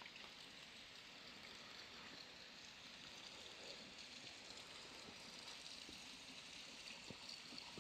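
Near silence: a faint, steady outdoor hiss with a couple of soft ticks near the end.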